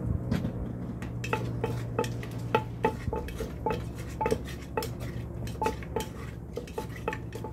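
Wooden pestle pounding shredded green papaya in a clay mortar. The knocks come steadily, about three a second, each with a short ring, starting about a second in.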